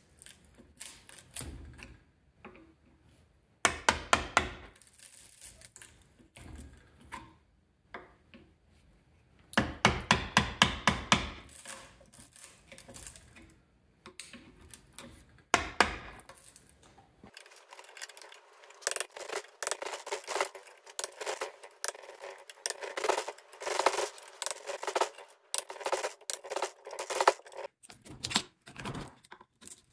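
Metal tools striking the copper windings and steel core of an electric motor's stator, knocking the copper out. The sound comes in bursts of rapid metallic impacts, loudest about four, ten and sixteen seconds in, followed by a longer run of lighter, quicker strikes.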